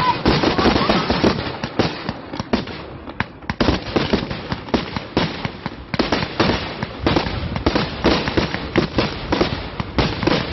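Aerial fireworks going off in quick succession: a dense run of sharp cracks and bangs, many a second, with a brief lull about three seconds in.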